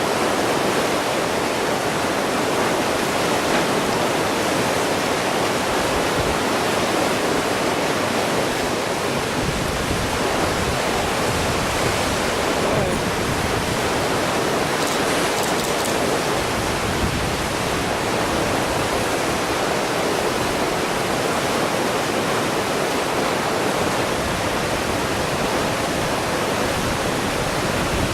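Flood-swollen river rushing through rapids and falls: a loud, steady rush of water.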